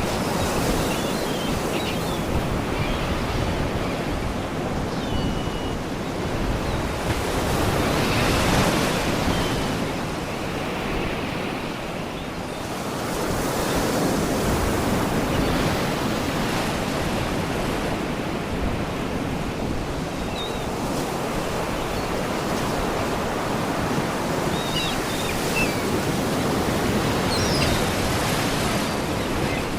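Sea waves washing and breaking against rocks, a continuous surf noise that swells louder every few seconds. Faint, short seagull cries come through now and then.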